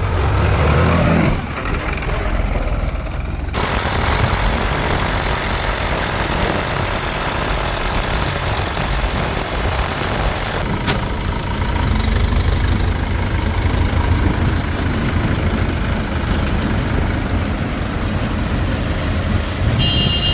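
Heavy diesel engines of a JCB 3DX backhoe loader and a tractor running steadily while the loader works, with the engine note shifting a few times. A brief hiss comes about twelve seconds in, and a short high-pitched tone sounds near the end.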